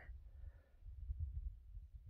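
Faint low rumble of wind buffeting the microphone, rising and falling unevenly.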